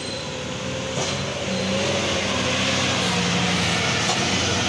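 An Isuzu dump truck's diesel engine labouring steadily as the truck pulls up a steep hairpin bend. It grows louder from about a second in as the truck comes close.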